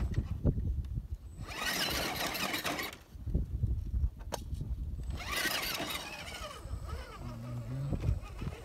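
Electric motor and gearbox of an RC rock crawler whining in two bursts of throttle, about a second and a half in and again about five seconds in, the pitch wavering as it crawls up a steep rock face, with a few sharp clicks in between.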